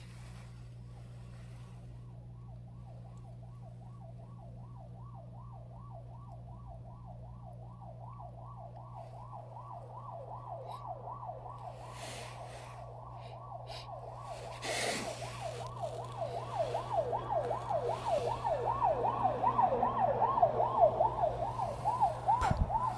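A taxi's siren on a fast yelp, rising and falling about five times a second. It grows steadily louder as it approaches.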